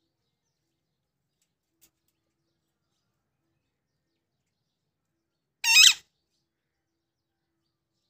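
Alexandrine parakeet giving one short call, about two thirds of the way in.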